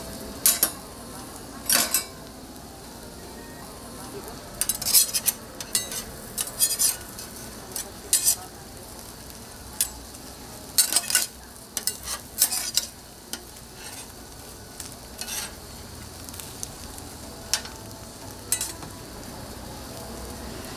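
Food sizzling on a flat-top griddle, with sharp, irregular metal spatula scrapes and taps against the hot plate every second or so.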